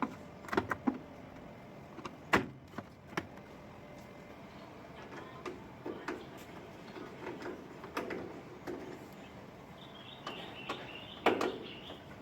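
A washing machine's top panel being handled and lifted off: scattered knocks and clicks, the loudest about two seconds in and again near the end, with scraping and shuffling in between.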